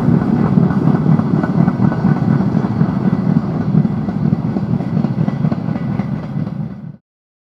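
Train rolling along the track out of view: a dense rumble with rapid wheel clatter on the rails, slowly fading, then cut off abruptly about seven seconds in.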